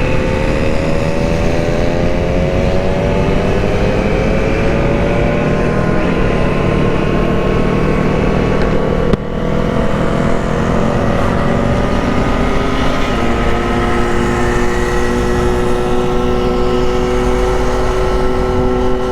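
Motorcycle engine accelerating on a racetrack. Its pitch rises for the first several seconds, drops briefly at a gear change about nine seconds in, climbs again, then holds steady at cruising speed.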